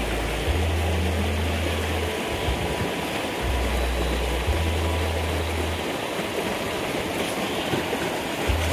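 Steady rushing noise like running water, with a deep low rumble that comes and goes every second or two.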